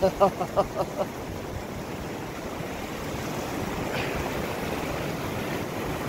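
Steady rush of river water with the boiling hot-spring outflow cascading into it, a little louder after the middle, after a few brief vocal sounds in the first second.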